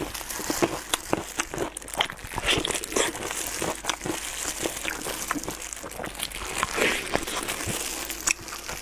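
Clear plastic food gloves crinkling as hands pull apart a sticky braised pork trotter, a continuous run of short, irregular crackles and wet tearing sounds.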